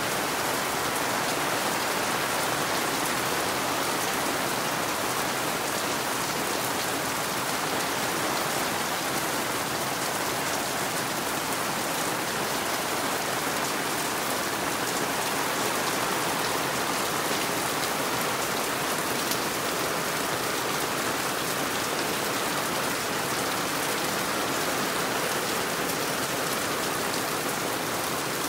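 Steady heavy rain falling, with water dripping from the edge of the porch roof.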